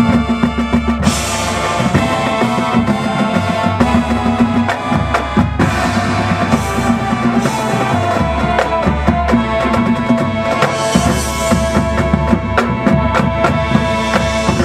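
High school marching band playing a field show: brass and woodwinds holding sustained chords over frequent drumline and pit-percussion hits.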